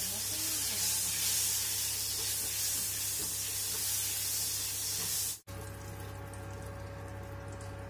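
Food frying in hot oil in a wok, a loud steady sizzle that cuts off suddenly about five seconds in, leaving a quieter steady hum with a thin tone.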